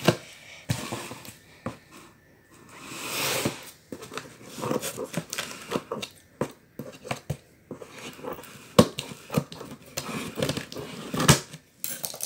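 Scissors slitting the packing tape on a cardboard shipping box, with irregular sharp snips, scrapes and clicks and the rustle of the cardboard flaps being handled.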